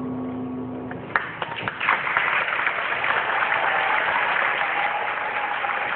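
A school concert band's last held chord dies away, and after about a second and a half the audience breaks into applause, which carries on steadily.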